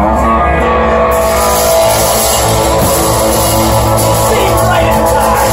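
Live rock band playing: drum kit with cymbals, electric guitars and a steady beat. The top end is dull at first, and the cymbals come through bright from about a second in.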